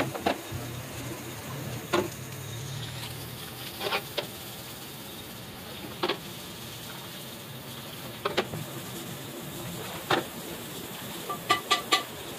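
Sharp metallic knocks and clinks about every two seconds over a steady background hum, ending with a quick run of four ringing clinks. The first knock comes as a cast-iron sewing machine head is set down.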